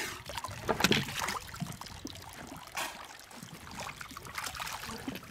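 Water splashing and sloshing as a swimmer moves in the water at the side of a small wooden boat: irregular splashes, the loudest about a second in.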